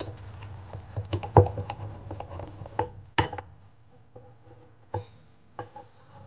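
Metal wire whisk beating a thick oat batter in a glass bowl, clicking and scraping against the glass, with a couple of sharp knocks on the bowl. The whisking stops after about three seconds, leaving only a few light taps.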